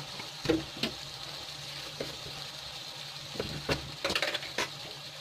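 Onion-tomato masala sizzling as it fries in a kadhai, a steady frying hiss. A few short clicks of a spoon or spatula against the pan, several of them close together near the end.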